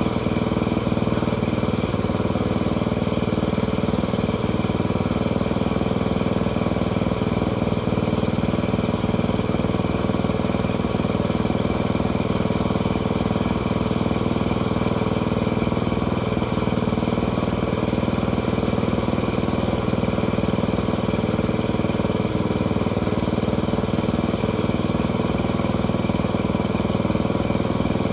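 An engine running steadily at an even speed, with no rise or fall in pitch or loudness.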